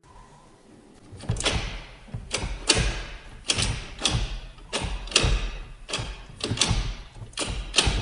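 Ford Focus ST manual gear lever being run through the gears with a Mountune quick-shift and short-throw shifter fitted. The shift linkage gives a series of sharp clicks and clunks as each gear engages, often in quick pairs, starting about a second in.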